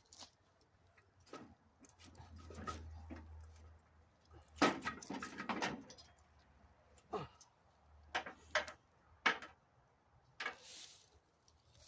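Intermittent knocks, clinks and rattles of go-kart parts and hand tools being handled during assembly, with a close cluster of them about halfway through.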